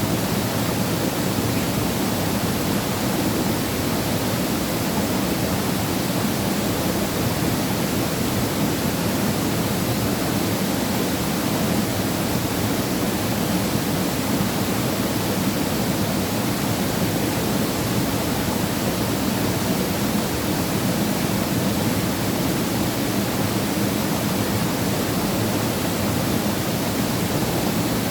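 Waterfall plunging into a mountain valley pool: a steady, unbroken rush of falling water.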